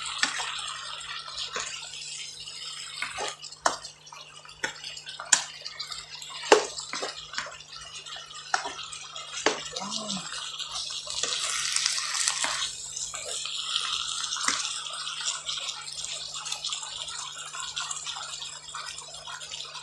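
Pork and vegetables sizzling in a wok with a thickening oyster sauce, while a wooden spatula stirs them, its scrapes and taps against the pan heard as scattered sharp clicks and knocks.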